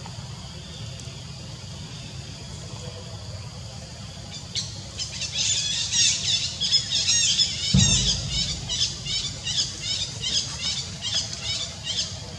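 Baby macaque squealing: a rapid run of short, high-pitched squeals, about three a second, that begins about four seconds in and keeps on almost to the end. A single low thump comes near the middle of the run.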